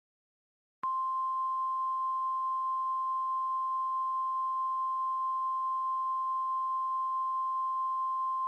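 Emergency alert attention tone: one steady, unwavering electronic tone that starts about a second in and holds at an even level.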